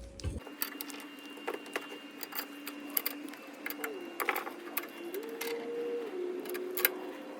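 Bench vise being wound in to press universal-joint bearing caps into the steering shaft yoke, with irregular sharp metal clicks and clinks. A steady hum that steps up and down in pitch runs underneath.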